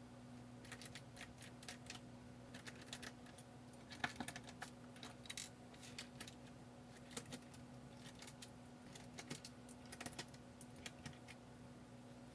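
Faint, irregular small clicks and ticks of a precision screwdriver and tiny screws being worked out of a Kindle DX's internal frame and set down, over a steady low hum.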